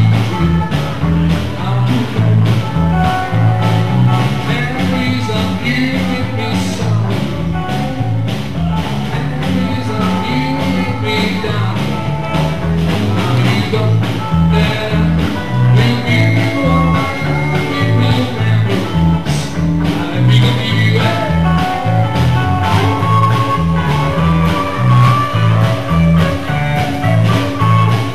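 Live rock and roll band playing: an electric bass walking from note to note under a hollow-body electric guitar, with a drum kit keeping a steady beat.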